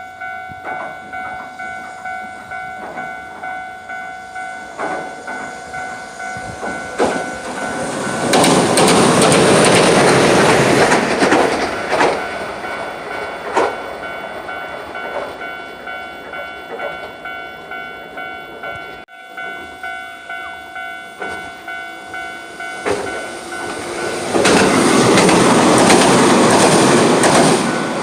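Level-crossing warning bell ringing in a steady pulsing rhythm while a Hiroden electric train passes over the crossing, its wheels loud on the rails for about three seconds. After a sudden break the bell rings on and a second train passes near the end.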